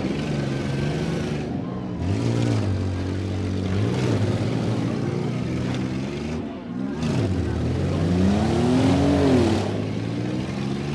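Engines of demolition-derby vans and pickup trucks revving, their pitch rising and falling again and again as the vehicles push and ram. The longest, highest rev comes near the end.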